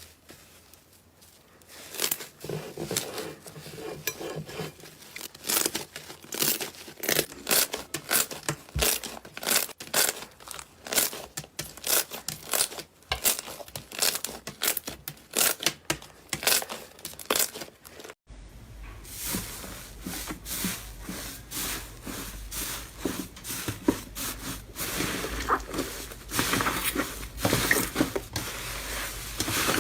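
Slime being squeezed and poked by hand close to the microphone, giving rapid irregular sticky pops, clicks and crackles. The sound changes character about 18 seconds in, when another slime clip starts.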